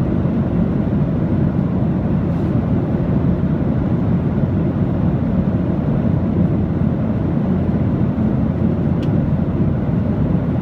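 Aircraft noise: a steady, deep, even rumble that does not rise or fall.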